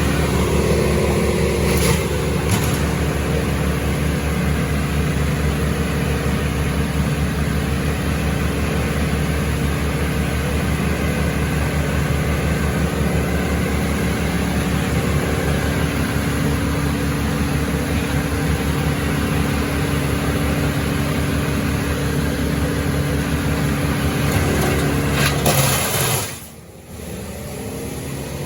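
Bandit 15XP wood chipper running steadily at high engine speed while chipping brush. The sound drops away sharply near the end.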